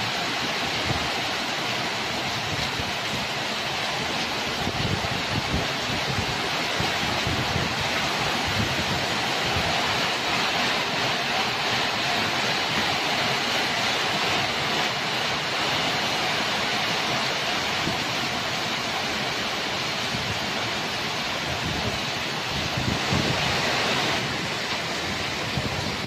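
Heavy thunderstorm rain pouring down steadily, swelling a little near the end.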